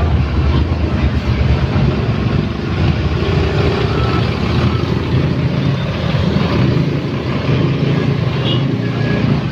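Tour bus engine running close by, a steady low engine sound with no clear let-up.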